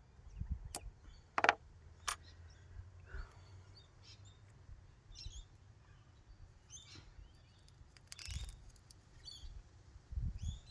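Black electrical tape being wrapped around wiring: scattered clicks and handling noise, with a longer rasp of tape pulled off the roll about eight seconds in. Faint bird chirps sound in the background.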